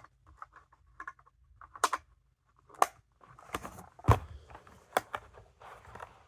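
Hands handling a small plastic weather alert radio: scattered sharp plastic clicks and light rustling, with the loudest knock about four seconds in.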